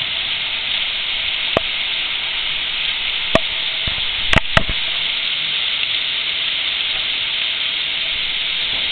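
Heavy rain pouring down steadily, with a few sharp taps near the microphone, a cluster of them about halfway through.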